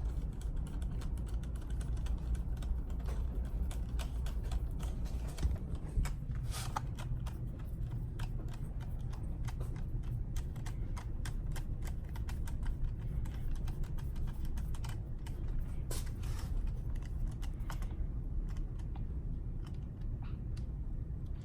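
Light, irregular clicks and taps of hands working on a radio-controlled truck's plastic and metal parts, over a steady low hum.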